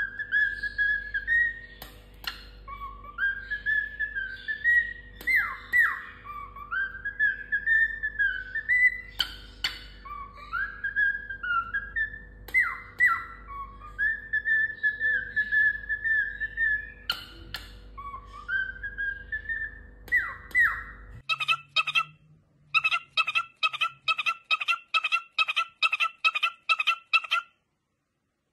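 Cockatiel whistling a tune in gliding, rising and falling notes over a faint steady hum, with a few sharp clicks. After about 21 seconds this gives way to rapid repeated short chirps, about three a second, which stop shortly before the end.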